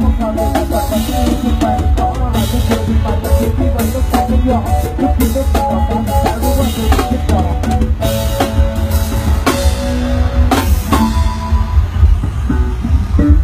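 Isan soeng dance music played loud through a sound truck's speaker system during a sound check: drum kit and snare over a heavy, booming bass, with a melody line that stops about eleven seconds in while the bass and scattered drum hits carry on.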